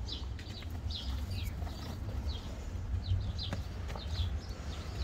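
Small birds chirping: short, high, quick chirps scattered through, over a steady low rumble.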